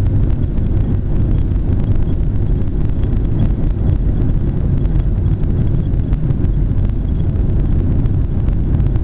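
Steady low rumble of a Boeing 737 airliner's jet engines and airflow heard inside the cabin, constant in level throughout.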